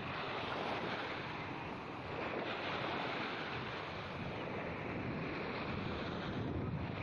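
Small sea waves washing in and foaming at the shoreline, with wind buffeting the microphone.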